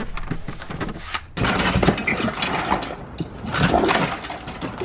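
Irregular clattering, crinkling and clinking of loose objects and debris being handled and pulled out of a car's interior.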